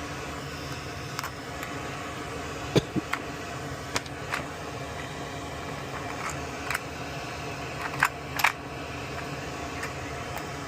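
Light clicks and taps of small tools handling a circuit board, about eight scattered through the middle, over a steady background hum.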